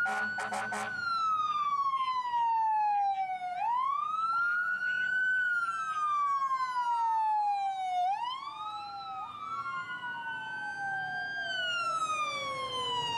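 Emergency vehicle sirens on the wail setting, from a fire-rescue ambulance among them: each tone rises quickly and then falls slowly, about once every four seconds. Two sirens overlap, sweeping out of step with each other.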